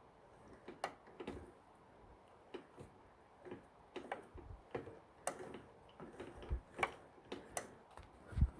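Irregular light clicks and taps of metal parts on a Foley 385 saw retoother being handled and adjusted by hand, with one sharper knock near the end.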